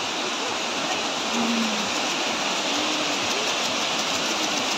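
Waterfall's steady rush of falling water, a constant hiss with faint voices briefly audible under it.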